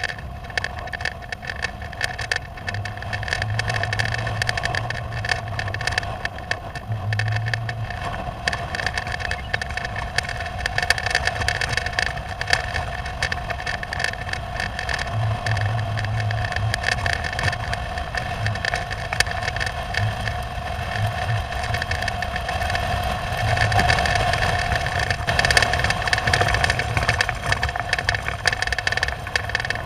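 Storm wind buffeting a rooftop camera dome, with dense rapid ticks of precipitation striking the housing and a steady hum beneath, the low rumble swelling and easing in gusts.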